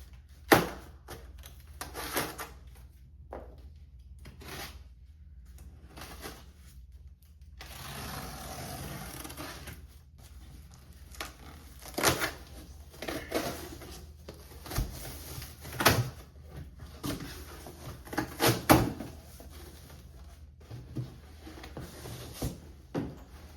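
Unboxing handling noise: packaging and a boxed tool being opened and moved about, with scattered knocks and clunks and a couple of seconds of rustling about a third of the way in.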